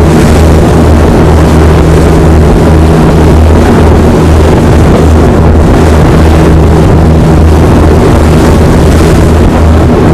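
Loud, steady low drone of an ex-RNLI Arun-class lifeboat's diesel engines running under way, with an even rushing hiss over it throughout.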